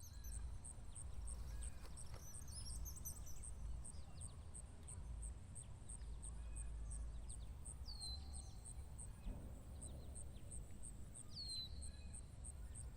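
Faint bird calls: scattered chirps and a few high whistles sliding downward, over a low steady rumble. A regular high-pitched ticking runs beneath.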